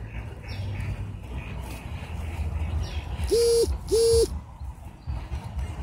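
Two short electronic hooting tones from a Nerf Lazer Tag blaster's speaker, each about half a second long, one right after the other about three seconds in.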